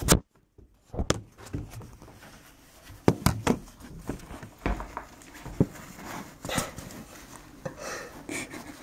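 Handling noise: a loud knock at the start as the camera is set down on the counter, then scattered knocks, clicks and rustling as a gauze bandage is wrapped around a forearm.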